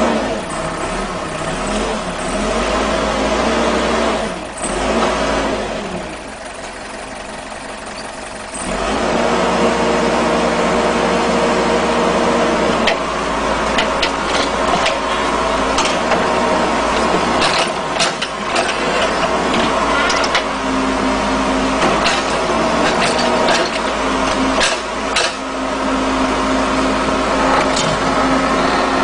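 Bulldozer's diesel engine running under load, easing off for a few seconds and then working louder and harder from about nine seconds in, with many short sharp knocks through the second half.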